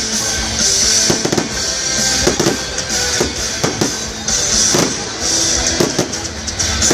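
Aerial fireworks going off in quick succession, sharp bangs with spells of crackling, over loud music.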